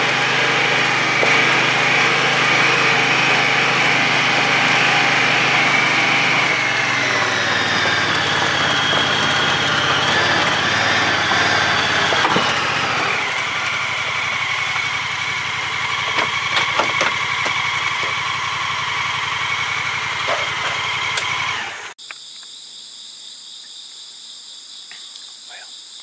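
Honda Pioneer side-by-side's engine running as it drives a rough dirt trail, the pitch dropping twice as it slows, with a few clicks and rattles. About four seconds before the end it cuts off abruptly to insects trilling in steady high tones.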